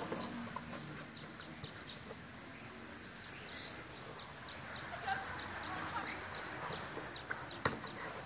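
Birds calling in the background: a busy string of short, high, downward-sliding chirps over faint outdoor noise, with one sharp knock near the end.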